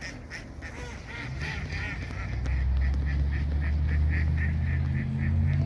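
Flock of Canada geese honking in flight, short calls coming about three or four a second and stopping shortly before the end, over a steady low rumble.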